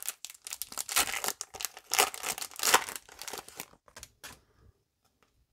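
Foil wrapper of a Pokémon trading card booster pack being torn open and crinkled as the cards are pulled out. The crackling stops a little over four seconds in.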